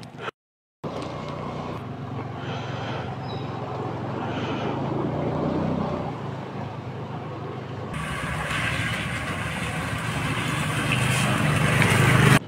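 Several motor scooters riding along a waterlogged road, their small engines running and growing louder as the leading scooter comes close near the end.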